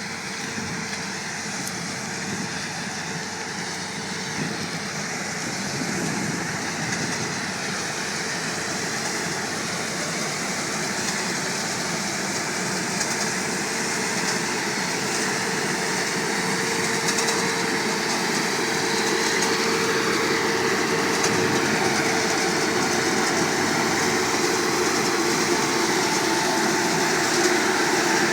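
Combine harvester running steadily during an oilseed rape harvest: a dense mechanical drone with a held hum, growing gradually louder.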